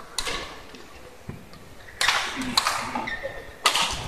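A few sharp clicks, each with a short echo in a large hall, irregularly spaced about half a second to two seconds apart.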